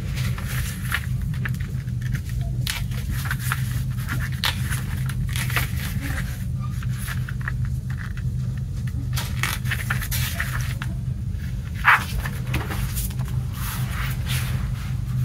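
Paper rustling and crinkling as a folded paper insert and a CD lyric booklet are unfolded, leafed through and laid flat, with one sharper crackle about twelve seconds in, over a steady low hum.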